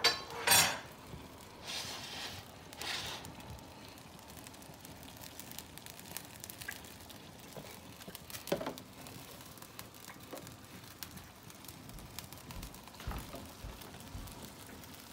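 Sauce sizzling quietly in a stainless skillet of flambéing bananas. Two sharp knocks come right at the start, short hissing bursts follow about two and three seconds in, and a few light clinks are scattered through.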